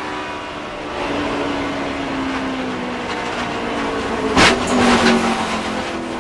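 In-car sound of a Dodge NASCAR stock car's V8 engine, its note sinking steadily as the car slides out of control. About four and a half seconds in comes a loud crash as the car hits the outside wall, followed by a few shorter hits and scrapes.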